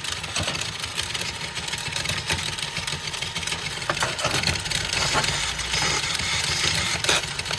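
The electric drive motor and gears of a 1980s radio-controlled off-road toy car running with a steady buzzing whir and a few clicks. It keeps running on its own and does not respond to its controller.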